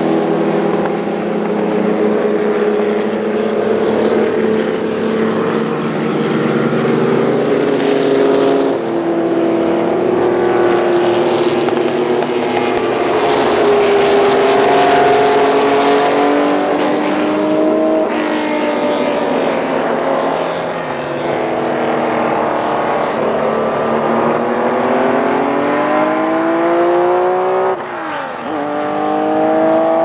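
Several racing Porsche 911 flat-six engines running together as a pack of cars drives past and away on track. Several engine notes overlap, and their pitch rises in the last few seconds as the cars accelerate.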